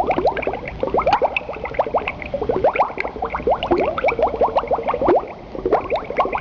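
Liquid bubbling: a rapid, continuous stream of small bubbles, each a short rising blip.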